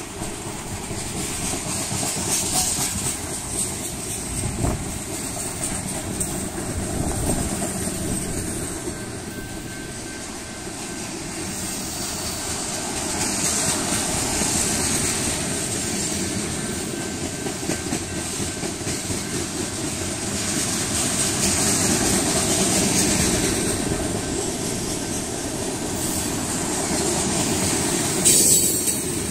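Long freight train of tank cars and covered hopper cars rolling past close by: the steady rumble and rattle of steel wheels on the rails, with clicks over the rail joints. It swells and eases as the cars go by, with a brief louder burst near the end.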